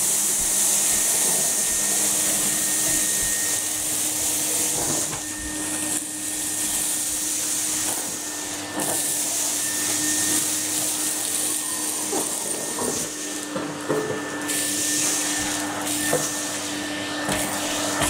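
Numatic Henry cylinder vacuum cleaner running steadily, a motor hum under a strong rush of air, while the floor tool is pushed over carpet. Its air rush dips a few times, and small clicks and knocks come as bits of paper and grit are sucked up.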